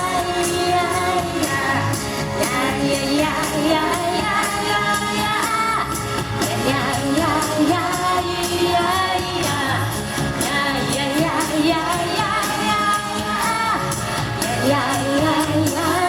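Singer vocalizing wordlessly over the accompaniment of an upbeat CCM song with a steady drum beat.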